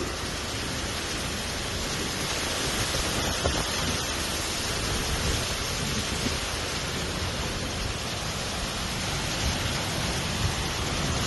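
Steady heavy rain, a dense even hiss with no pauses.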